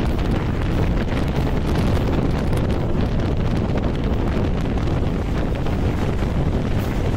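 Wind blasting the microphone held out at the window of a fast-moving passenger train, a steady rushing noise, with the train's running noise underneath.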